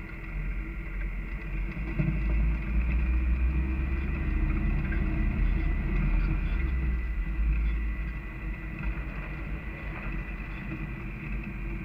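Off-road vehicle driving slowly on a rough dirt trail, heard from a dash camera inside the cab: a low rumble of engine and tyres, louder for several seconds in the middle, with a thin steady high tone over it.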